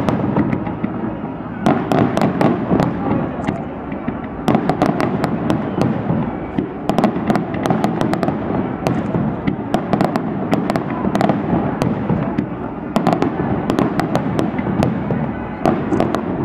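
Fireworks display: a dense, continuous crackle of bangs and pops from shells and fountains, coming in rapid flurries every few seconds.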